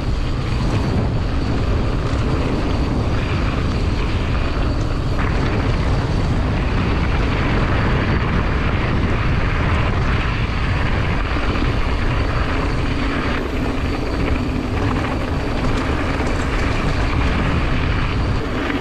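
Steady wind rush and rumble on an action camera's microphone as a mountain bike rides the trail, with tyre noise underneath.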